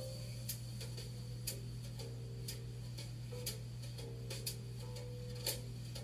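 Background music in a sparse passage: a clock-like tick about twice a second over soft held low notes and a steady low drone.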